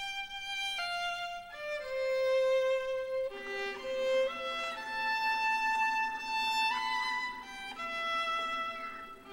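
Violin music playing a slow melody of held notes.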